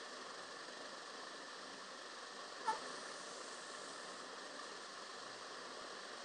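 Steady faint hiss of room tone, broken once, about two and a half seconds in, by a single brief sharp sound.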